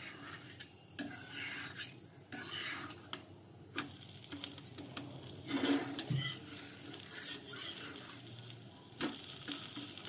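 Metal spatula scraping and tapping on an iron tawa as two sandwiches are turned over, in several separate bursts. Low sizzling comes from the ghee-brushed papad sides landing on the hot griddle.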